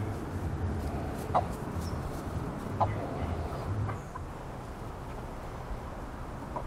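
Backyard chicken clucking: a few short, sharp clucks, two louder ones about a second and a half apart. Under them runs a low rumble that eases off about four seconds in.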